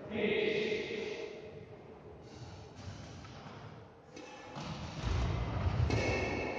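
Badminton doubles play on a wooden indoor court: players' footfalls and thuds, with a few short knocks of racket on shuttlecock, busier near the end as a rally gets going.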